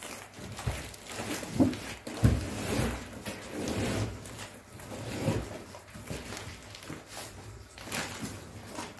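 Crinkling of the plastic wrap around a rolled-up mattress as it is pushed and shifted by hand on the floor, with irregular rustles and a couple of dull knocks about two seconds in.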